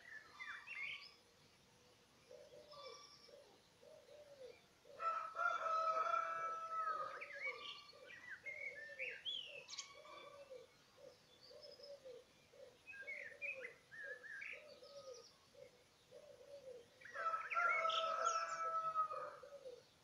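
Birds calling: a rooster crows twice, about five seconds in and again near the end, each crow about two seconds long, among scattered songbird chirps and trills. Beneath them a low call repeats steadily, about once a second.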